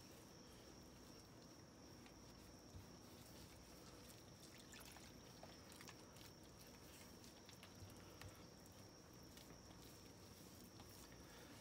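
Near silence: a faint hiss with a thin steady high tone, and a few faint soft ticks and squelches of a hand mixing water into a well of flour.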